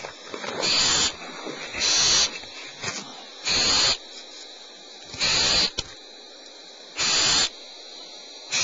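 Barn owl nestlings hissing in the nest cavity: six loud, rasping hisses about a second and a half apart, each lasting about half a second.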